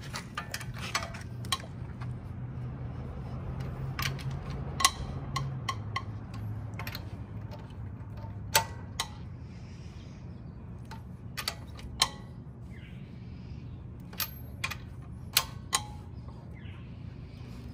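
Sharp metallic clicks and clinks, a second or several apart, from a long-handled wrench and socket on a car wheel's lug nuts as they are tightened by hand. A low steady hum runs underneath.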